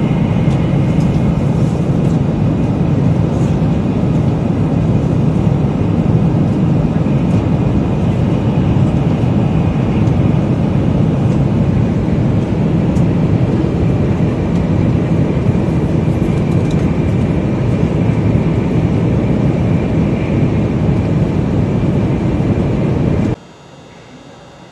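Steady rumble and rush of a Shinkansen bullet train running at speed, heard from inside the carriage, heaviest in the low end. It cuts off suddenly near the end to a much quieter hum.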